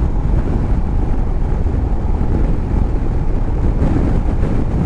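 Heavy wind rush buffeting the microphone of a motorcycle rider's action camera at road speed, with road and bike noise underneath.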